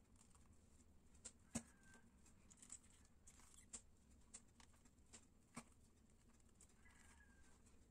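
Near silence: faint room tone with a few soft, scattered clicks and ticks.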